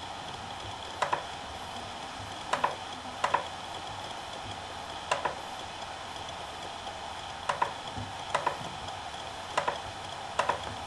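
Seagate BarraCuda ST2000LM015 2.5-inch 2 TB hard drive spinning with a steady whir, its heads seeking in short clusters of two or three sharp clicks about eight times at irregular intervals.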